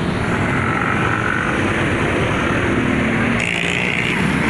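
Intercity coach's diesel engine running close by, a loud steady rumble, with a brief higher sound joining in about three and a half seconds in.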